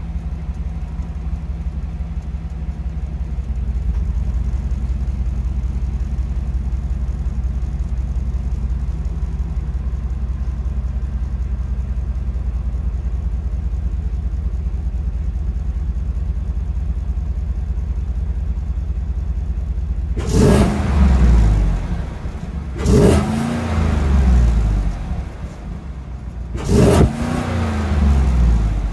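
A 2017 Chevrolet Silverado's 6.2-litre L86 V8 idling steadily through its bone-stock exhaust with the suitcase muffler. In the last nine seconds it is revved three times, each rev rising in pitch and falling back to idle.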